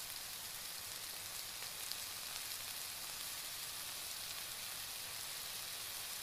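Tomato and green-mango curry simmering in a stainless steel pan: a steady sizzle with a few faint crackles.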